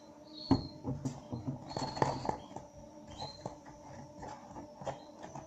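Spoon stirring glue-and-borax slime in a bowl: scattered clicks and scrapes with a few short squeaks, and one sharper knock about half a second in.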